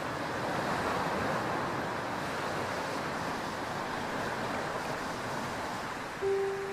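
Steady rush of sea surf. A held musical note comes in near the end.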